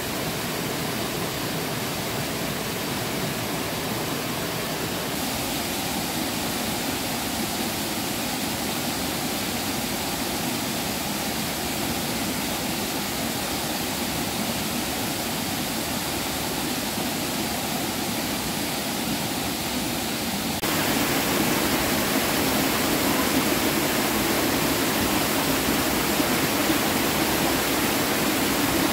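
Steady rush of flowing water, turning abruptly louder and fuller about two-thirds of the way through.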